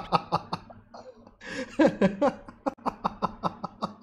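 A man laughing heartily in quick, repeated bursts, with a short break about a second in.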